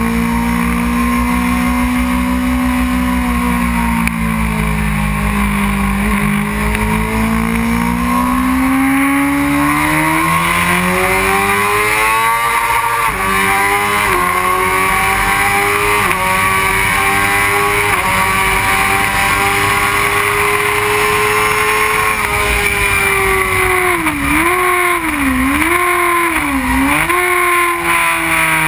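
2001 Honda CBR600 F4i's inline-four engine at high revs, with wind rushing past. Its pitch climbs and falls sharply at three gear changes a little before the middle, then holds steady. Near the end the pitch dips and recovers three times in quick succession.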